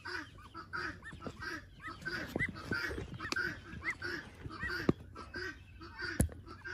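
Broody duck sitting on her nest, giving a steady run of short, low honking calls, about two or three a second. Higher rising-and-falling peeps from the hatching ducklings are mixed in, and two sharp clicks come near the end.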